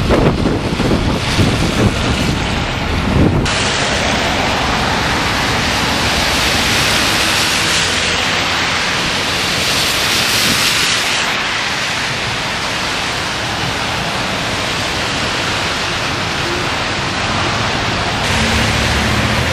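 Wind in a snowstorm buffeting the microphone in gusts, then, after a sudden change about three and a half seconds in, an even, steady hiss.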